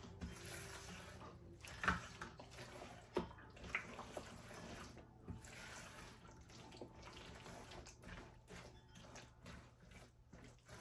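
Faint kitchen handling sounds: a few soft knocks and wet squishing as chopped eggs and vegetables are worked into a mayonnaise dressing in a bowl, over a low steady hum.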